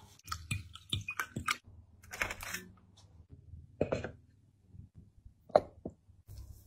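Handling sounds of a split bamboo tube: raw rice poured in, then scattered knocks and clicks of bamboo as the tube is set on a charcoal brazier and its lid fitted. The sharpest knock comes near the end.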